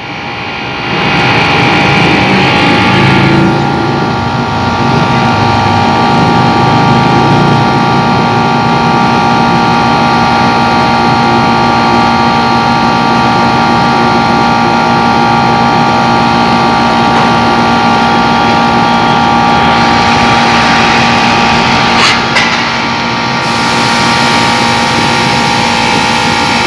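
Air conditioner running: the compressor and fan motor give a steady, loud hum with several steady tones. A couple of clicks come about 22 seconds in, and a high hiss joins near the end.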